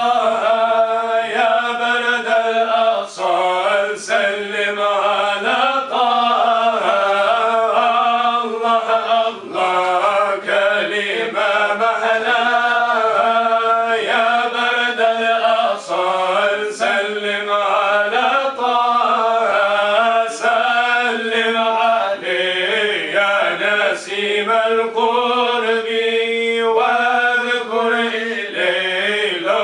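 A group of men singing an Arabic devotional nasheed (inshad) together, unaccompanied and continuous, with a steady low note held beneath the melody.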